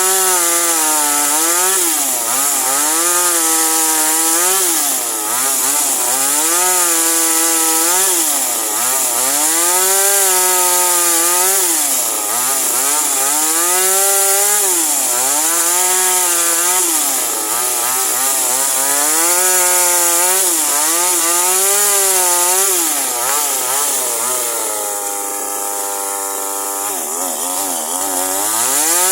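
Toyama TCS25X G2 25.4 cc two-stroke chainsaw cutting wood, its engine pitch rising and falling again and again, about every two seconds. Near the end it drops to a steady lower note for a couple of seconds before revving up again.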